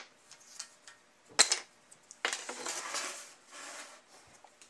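Small wooden box pieces being set down and shuffled by hand on a plywood board: a light knock, a sharp wooden knock about a second and a half in, then about a second of scraping and clattering as the pieces are slid around.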